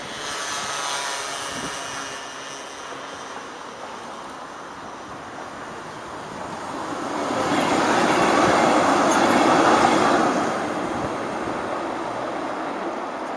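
A tram passing close by. The rumble of its wheels on the rails swells to its loudest about eight to ten seconds in, then eases off. A thin high whine is heard in the first couple of seconds.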